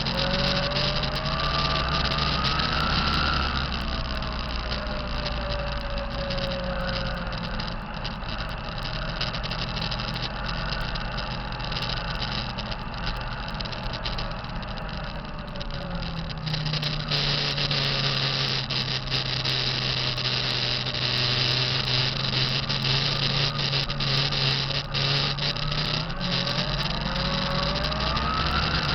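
2005 Kenworth T660 truck's diesel engine running, with a turbocharger whine that rises in pitch, falls slowly, then rises again near the end as engine speed changes. The turbo sound is one the owner considers bad.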